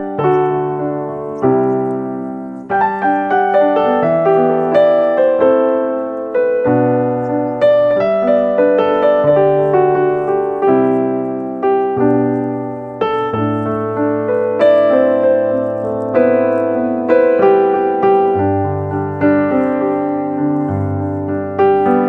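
Piano music: a melody over low bass notes, each note struck and left to fade.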